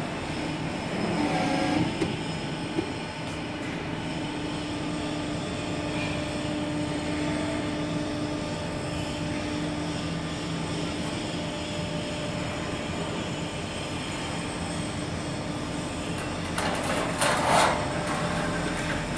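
ACCURL MS8 hydraulic guillotine shear's hydraulic pump and motor running with a steady hum. Near the end comes a short rattling scrape of a thin steel sheet being slid across the shear's table.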